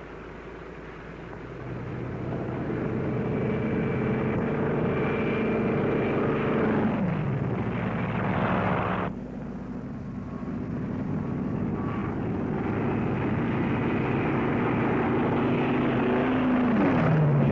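Piston-engine propeller aircraft running, with the engine note dropping in pitch as a plane passes. The sound cuts off suddenly about halfway through, then another engine drones and falls in pitch again near the end.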